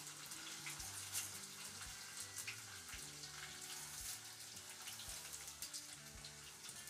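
Washed, still-damp rice frying in hot oil in a metal pot: a steady sizzle with many fine crackles.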